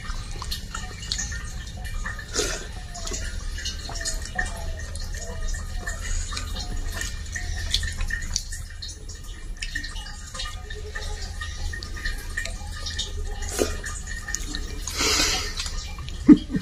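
Hand-eating: scattered small wet clicks and smacks of fingers mixing rice and curry on a steel plate, over a low steady hum. A brief rustling burst comes near the end.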